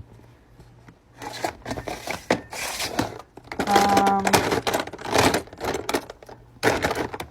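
Plastic fidget toys being rummaged through and handled: irregular clicking, clattering and crinkling, with a short steady pitched sound about halfway through.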